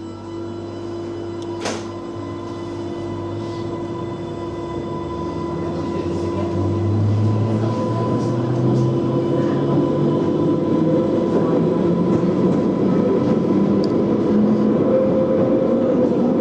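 Inside a Class 484 electric train (converted London Underground D78 stock) pulling away and gathering speed: the whine of its electric traction motors slowly rises in pitch and grows louder, with wheel and track noise building under it. A single sharp clunk about two seconds in.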